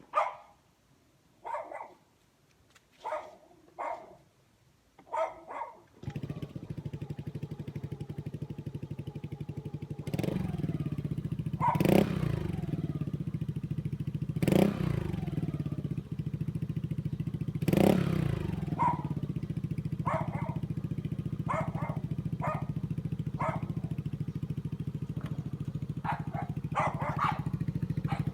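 A dog barks several times. About six seconds in, a Yamaha Aerox scooter's engine starts and runs steadily through an aftermarket Akrapovic-copy exhaust, with a few quick throttle blips, while the dog keeps barking over it.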